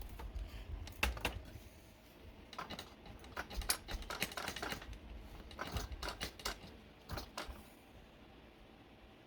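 Irregular clusters of sharp clicks and light knocks, like small metal parts being handled, for about seven and a half seconds, then stopping; no engine is heard running.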